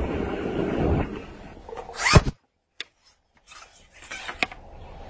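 Hooked fish splashing and thrashing at the water's surface as it is played in toward the bank, loudest for the first second. A short, sharp sound comes about two seconds in, the sound cuts out for about a second, and then come a few faint clicks.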